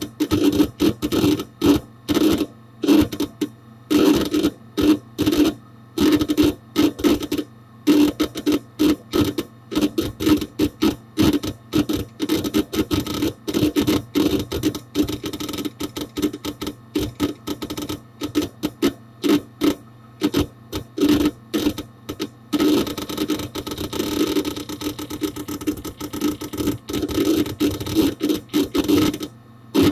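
Hard disk drive inside a Dell Dimension 4700 desktop busy seeking, heard from inside the case close to the drive: rapid, irregular clicking and chattering of the read/write heads over a steady low hum. About three-quarters of the way through, the chatter turns almost continuous for several seconds.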